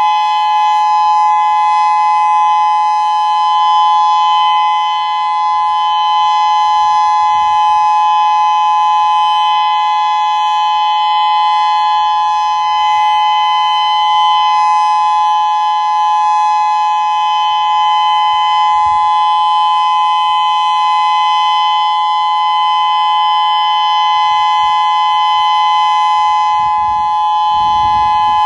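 Federal Signal Modulator 6024 electronic outdoor warning siren sounding a steady alert tone: two close, unwavering pitches held together without rising or falling, during a siren system test.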